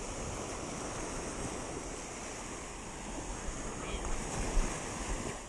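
Ocean surf washing up a sandy beach in a steady rush, with wind rumbling on the microphone.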